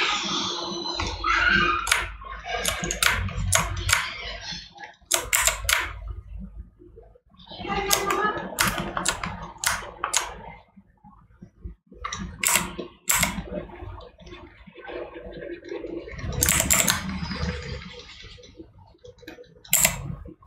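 Computer keyboard keys clicking in irregular clusters, with stretches of soft scratchy rubbing noise between them.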